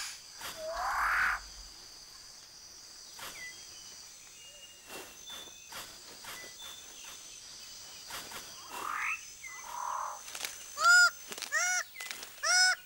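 New Guinea rainforest birds of paradise calling: rising, upslurred calls, then near the end a loud run of repeated nasal honking calls about two a second, over a steady high whine.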